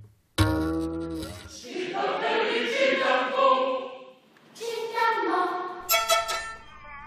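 A choir singing with instrumental accompaniment, briefly dropping away about four seconds in before the singing resumes.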